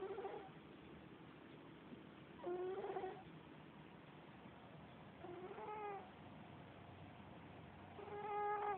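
A sleeping domestic cat snoring, with a short pitched snore on each breath about every two and a half to three seconds, four in all.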